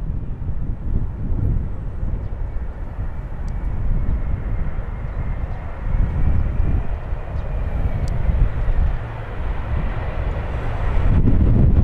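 Airliner on landing approach in strong wind: gusty wind rumble on the microphone with a faint engine whine, and the aircraft's engine noise swelling louder near the end as it comes closer.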